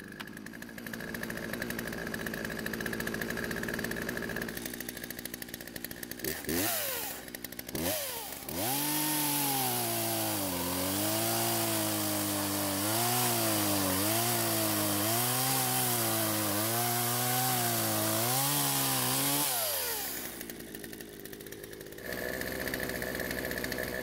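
Poulan 2025 two-stroke chainsaw idling, blipped to high revs twice about seven seconds in, then cutting through a log under full throttle for about eleven seconds, its pitch dipping and recovering as the chain bites into the wood. Near the end it is released and drops back to idle.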